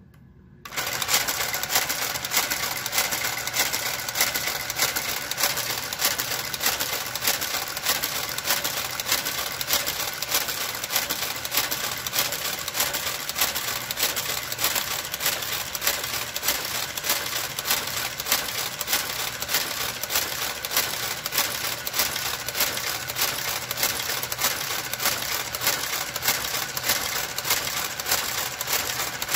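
Motor-driven carriage of a Brother knitting machine running across the needle bed, knitting rows: a steady mechanical clatter of evenly spaced clicks that starts about a second in.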